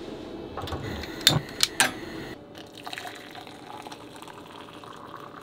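A few light metal clanks from a camping kettle about a second in, then water poured from the kettle into a cup, a steady pour with a faint held tone.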